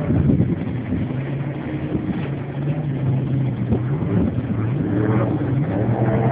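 Jet boat engine running steadily, its pitch dipping and then rising again about five seconds in as it revs up.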